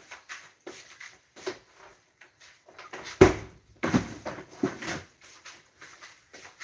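Kitchen clatter: irregular knocks and clunks of things being handled, with one louder thump about three seconds in and a cluster of clunks around four to five seconds in.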